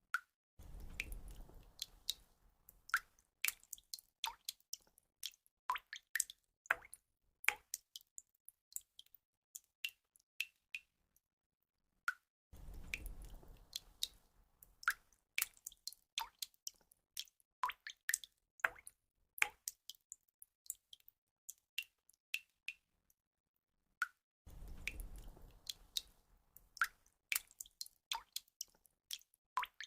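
Water drops falling and plinking at irregular intervals, many sharp single drips, sometimes several a second, over a faint low wash. The same run of drips repeats about every twelve seconds.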